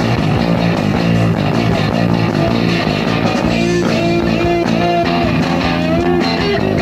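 Punk rock band playing live: distorted electric guitars, bass and drums at a steady loud level. From about halfway through, a lead guitar melody of long, bending notes rises over the rest.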